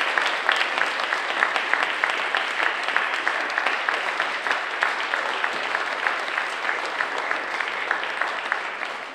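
Audience applauding steadily, with a few nearby clappers' sharp claps standing out.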